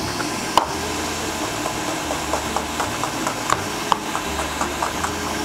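Pieces of lamb leg searing in hot olive oil in a pot: a steady sizzle with irregular pops and crackles.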